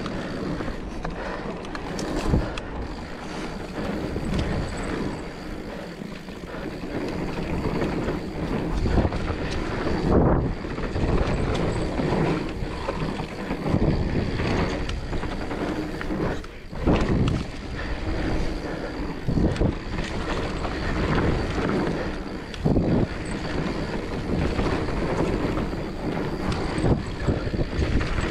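Mountain bike ridden fast down a dirt trail: steady tyre rumble on packed dirt and wind rushing over the microphone, broken by frequent knocks and rattles as the bike hits bumps.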